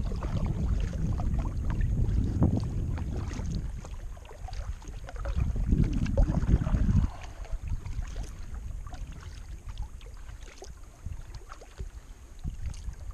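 Kayak under way on a river: paddle strokes and small splashes and drips of water around the boat. A low rumble is loudest for about the first seven seconds and then stops suddenly, leaving the quieter water sounds.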